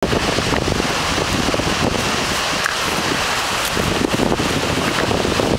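Steady rushing noise of a tall waterfall pouring down close by, with wind buffeting the microphone in gusts.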